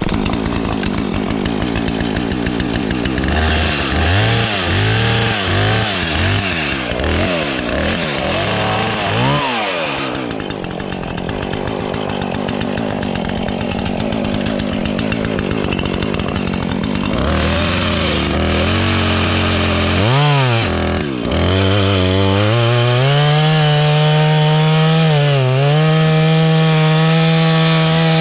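Husqvarna two-stroke chainsaw revving up and down repeatedly, then held at high, steady revs over the last several seconds while cutting dead elm wood. The chain is dull.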